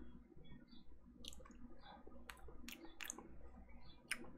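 Faint, scattered mouth clicks and lip smacks, about five in four seconds, from someone tasting a drop of flavour concentrate off the back of his hand.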